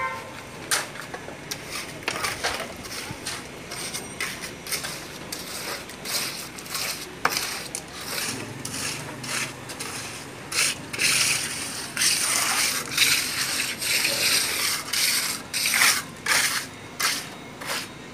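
Steel trowels scraping and spreading wet cement mortar on top of a brick wall: many short, irregular scrapes, coming thicker and louder from about halfway through.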